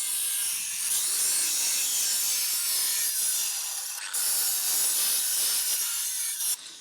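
Angle grinder grinding steel angle: a loud, steady abrasive hiss with the motor's pitch sagging and recovering under load. It breaks off briefly about four seconds in and stops shortly before the end.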